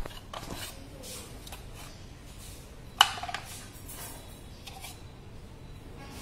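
Small bristle brush scrubbing and dabbing epoxy glue inside a bamboo box, with light handling rustles. There is one sharp knock about three seconds in.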